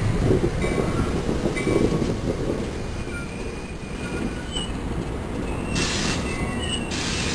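NJ Transit Comet commuter coaches rolling past on the rails with a low rumble and clatter, while the wheels and brakes squeal in thin high tones. Two short bursts of hiss come near the end.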